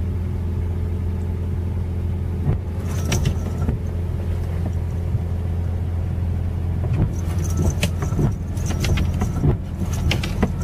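Steady low hum inside a car cabin, with the windshield wipers going: short clicks and scrapes against the rain-wet glass about three seconds in and again in clusters toward the end.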